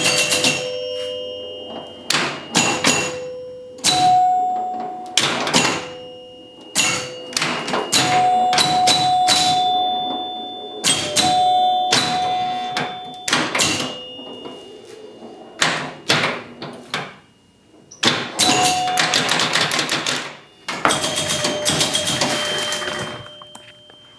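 1976 Gottlieb Surf Champ electromechanical pinball machine in play: sharp mechanical clacks, many of them followed by ringing bell-like chime tones as points score. In the second half come two quick runs of rapid chimes and clacks.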